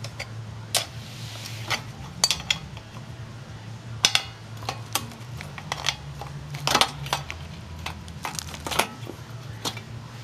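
Irregular sharp metallic clinks and clatters from handling an opened sheet-metal ammunition spam can and its contents, about a dozen scattered knocks, over a steady low hum.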